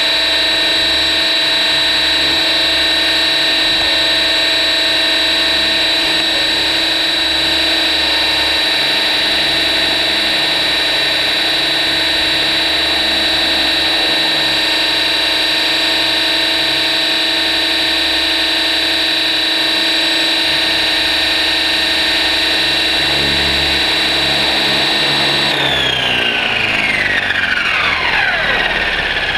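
Electric RC helicopter's motor and rotor running at a steady, high whine with several held tones, then spooling down about four seconds before the end, every tone sliding down in pitch as the rotor slows.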